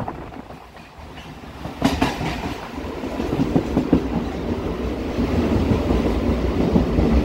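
MMTS suburban electric train running on the rails, its wheels clattering over the track; the noise jumps up about two seconds in and keeps building.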